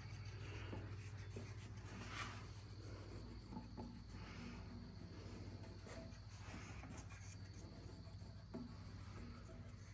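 Faint rubbing and scraping with a few light ticks as wood glue is worked onto hickory boards, over a steady low hum and a thin high whine.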